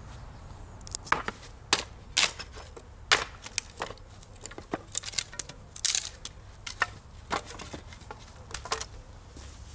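Irregular sharp knocks and cracks of sticks and pieces of wood being handled and broken, about a dozen separate strokes with short gaps.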